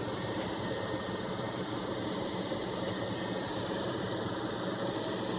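Steady whir of a fume extractor's fan running at a soldering bench.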